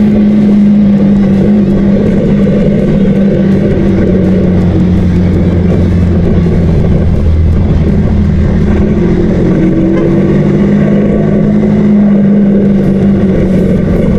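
KTM 200 Duke's single-cylinder engine running while riding at steady speed. The note dips slightly in the middle and climbs back near the end.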